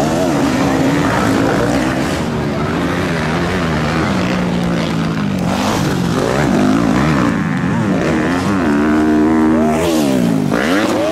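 Motocross bike engines racing on a dirt track, their pitch rising and falling repeatedly as the riders rev up and back off.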